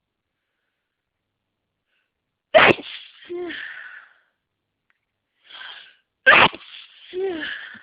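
Two sneezes in a row from a person with hay fever. The first comes about two and a half seconds in, with a short voiced tail falling in pitch. A quick breath in leads to the second, which has the same falling tail.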